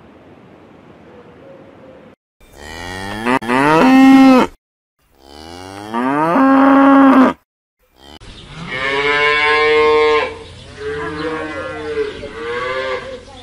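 Cattle mooing: several long, loud moos, each rising in pitch and then held, with short cut-off gaps between them. Quieter, wavering lowing follows near the end.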